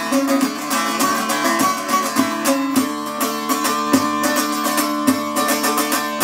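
Bağlama (Turkish long-necked saz) strummed with rapid, even strokes, playing a melody over a steady drone of its open strings in an instrumental passage without singing.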